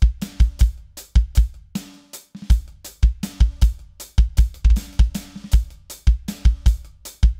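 Drum kit with a Roland KD-A22 trigger as its kick, being played in a busy beat: heavy bass drum strokes, often in quick pairs, under snare hits and a steady wash of cymbals.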